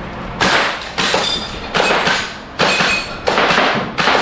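Airsoft guns firing single shots at a range, about six sharp cracks spaced roughly two-thirds of a second apart, some followed by a short metallic ringing.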